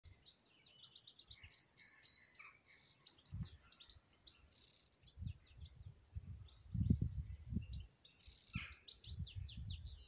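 Several songbirds singing, with quick high trills and chirps throughout and a short whistled note early on. From about a third of the way in, irregular low rumbles of wind buffet the microphone, loudest a little past the middle.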